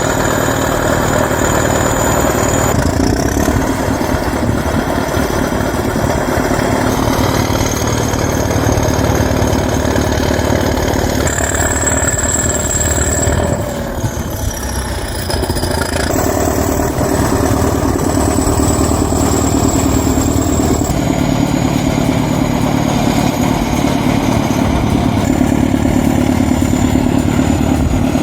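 T-170 crawler bulldozer's diesel engine running steadily, the sound changing abruptly several times at cuts between shots, with a brief drop in loudness about halfway through.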